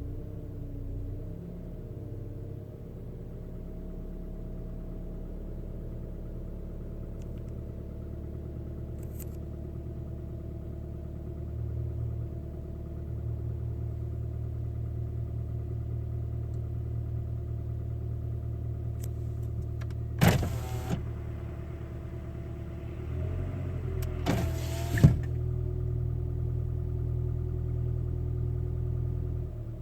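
2010 Toyota RAV4 engine running with a fast, steady knocking or tapping under load, which the owner suspects is piston slap, on an engine not yet at full operating temperature. About twenty seconds in, and again about four seconds later, a brief louder noise stands out.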